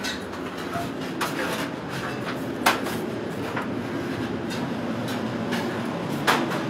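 Steady low rumble of commercial bakery kitchen machinery, such as extractor ventilation, with a few sharp knocks, the loudest about two and a half seconds in and another near the end.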